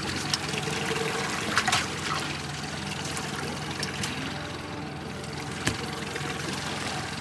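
Boat engine running steadily under a constant wash of water noise, with a few sharp knocks on the deck.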